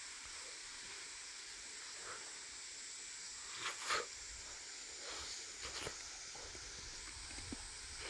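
Chicken-and-vegetable ajillo simmering in oil, a steady quiet sizzling hiss, with a few short clicks of utensils about halfway through.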